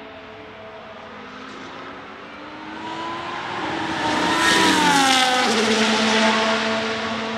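Ferrari F1-75 Formula 1 car's 1.6-litre turbocharged V6 accelerating toward and past, its note climbing in pitch and growing louder, then dropping sharply in pitch as it passes about five and a half seconds in. A steady hum runs underneath.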